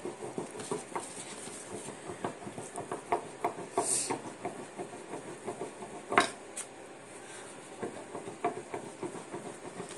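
Kitchen clatter of dumpling-making: rapid light clicks and taps of a rolling pin and utensils on a board, with one louder knock about six seconds in and a brief hiss about four seconds in.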